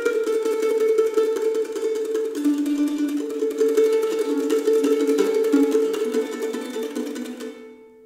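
Instrumental soundtrack music on a plucked string instrument, quickly picked notes over a steady middle register, fading out near the end.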